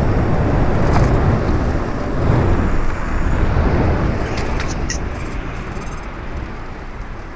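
Wind buffeting the helmet-mounted microphone, with tyre and road noise, as the e-bike rides along a paved street. It fades steadily over the last few seconds as the bike slows.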